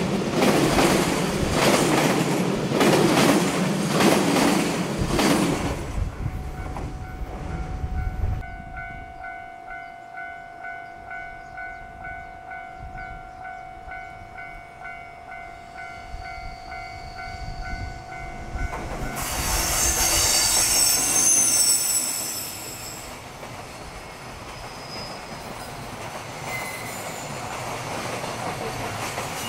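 A long container freight train of Koki flat wagons running past, its wheels clicking over rail joints, dying away after about six seconds. Then quieter steady pulsing tones, and a second EF210-hauled container freight train arrives with high-pitched wheel squeal around two-thirds of the way through before running on past.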